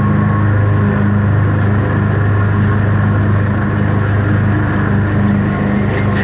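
Gravely ZT XL-60 zero-turn mower's engine running steadily with the cutting deck engaged, a loud, even hum.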